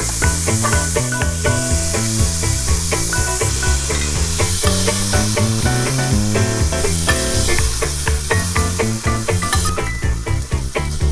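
Browned beef cubes sizzling in hot oil in a stainless steel sauté pan, with a spoon scraping and clicking against the pan as the meat is tipped out, over background music with a stepping bass line.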